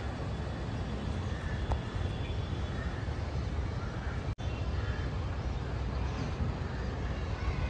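Steady outdoor background noise with a strong low rumble, briefly cutting out about four seconds in.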